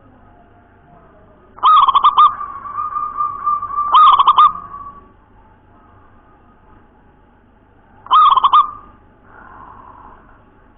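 Zebra dove (perkutut) cooing in a clear voice: a phrase of quick staccato coos starting about a second and a half in that runs into a long held note and a second burst of coos, then another short phrase of quick coos about eight seconds in.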